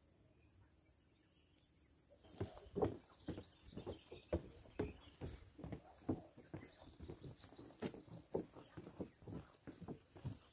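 Steady high-pitched insect chorus, crickets or cicadas. From about two seconds in, irregular soft thumps come two or three a second, like footsteps while walking.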